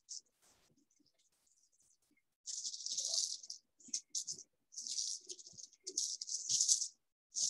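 Thin plastic backing sheet from a puff pastry sheet crinkling and rustling in a series of short bursts as it is peeled back while the pastry is rolled up, starting about two and a half seconds in.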